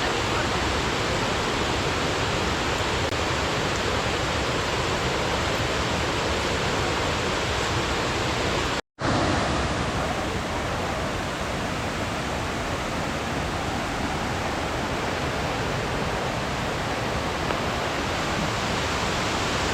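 Waterfall pouring: a steady, dense rush of falling water, cutting out for an instant about halfway through.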